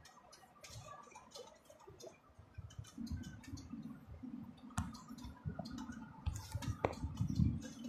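Scattered clicks and rattles inside a moving vehicle's cab, over a low rumble of engine and rough dirt road that grows louder from about three seconds in.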